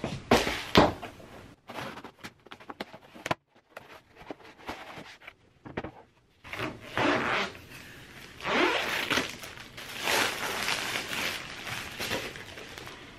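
Unboxing: a cardboard box knocking and scraping on a wooden floor, with a few loud thuds in the first second. From about halfway on, clear plastic wrap rustles in repeated bursts as it is pulled off a bamboo bed tray.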